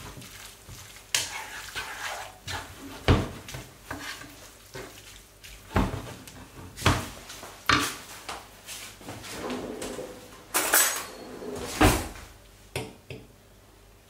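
Wooden spatula knocking and scraping against a coated frying pan while spaghetti is stirred and tossed in it. The knocks are irregular, about one a second, with a cluster of louder ones a little past the middle.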